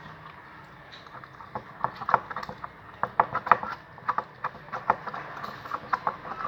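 A stirrer clicking and tapping against the container while mixing white glue with water for slime, an irregular run of short clicks starting about a second and a half in.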